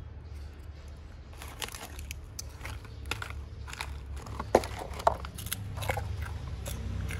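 A plastic snack bag crinkling and crackling as a baby monkey's hands rummage in it and pull out snacks: irregular rustles with two sharper crackles a little past halfway, over a steady low rumble.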